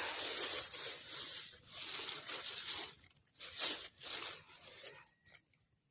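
Water splashing and sloshing as fish are scooped out of a flooded pond: a steady rush at first, then a few separate splashes.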